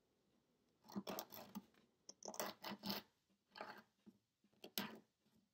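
Faint scratching of a nail file against fingernails: short strokes in irregular runs as the nails are shaped.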